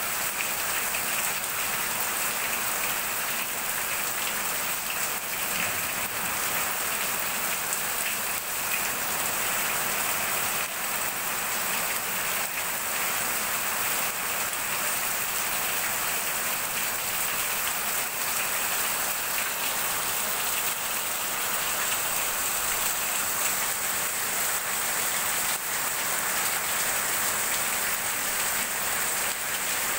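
Heavy rain falling steadily, with runoff streaming off the edge of a corrugated roof.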